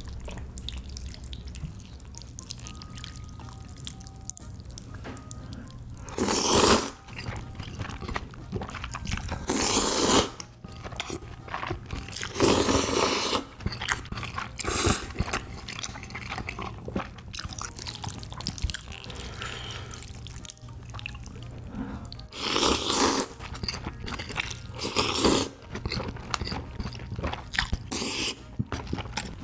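Close-miked slurping of saucy tteokbokki noodles and rice cakes. Several loud slurps of about half a second to a second each, with wet chewing and lip smacks in between.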